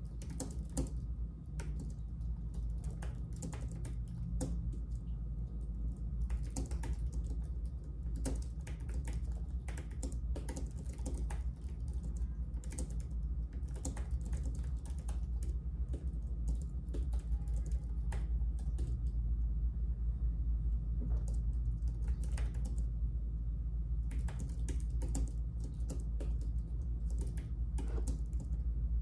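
Typing on a computer keyboard: irregular runs of key clicks, pausing for a few seconds about two-thirds through, over a steady low hum.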